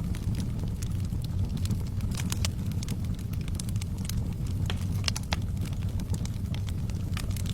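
Fireplace fire burning with a steady low rumble and frequent irregular sharp crackles and pops.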